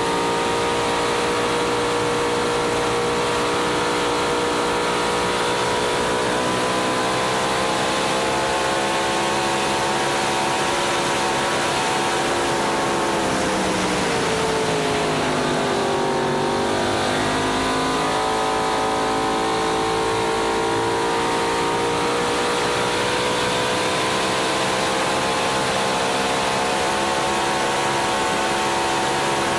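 Racing boat engine heard on board at racing speed, a steady high-revving note over rushing wind and water. About thirteen seconds in the pitch sinks for a few seconds, then climbs back to the same steady note.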